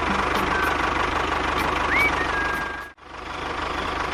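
Engine running steadily with a fast, even putter, like a small tractor engine. A short rising whistle-like tone sounds about two seconds in, and the sound cuts out abruptly about three seconds in, then resumes.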